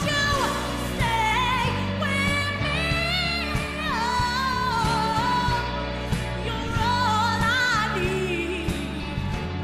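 A woman singing into a microphone with long held notes and vibrato, over a band accompaniment with a steady beat.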